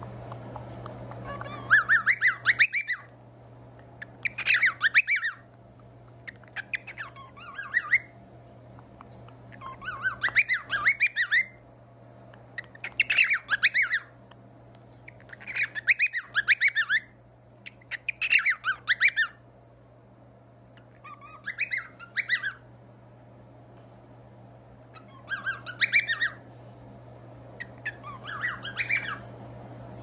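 Cockatiels calling right at the microphone in about ten bouts of rapid chirps and squawks, one every two to three seconds, over a steady low hum.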